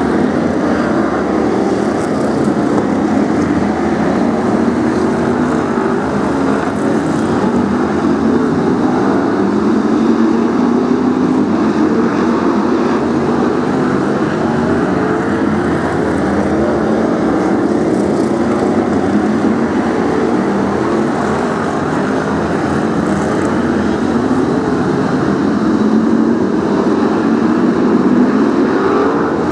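Several BriSCA F1 stock cars racing, their V8 engines running loud and continuous. The engine note rises and falls over and over as the cars accelerate and ease off around the oval.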